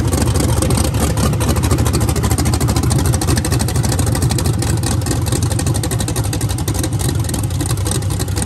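Supercharged LS V8 engine of a VW Bug sandrail idling steadily with a fast, even run of exhaust pulses. It is being run after a couple of fouled spark plugs were cleaned, to check whether the sputtering is gone.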